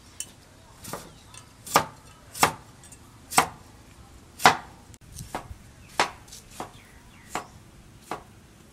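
Cleaver slicing a cucumber on a wooden cutting board: about a dozen separate knocks of the blade striking the board, spaced unevenly at roughly one a second.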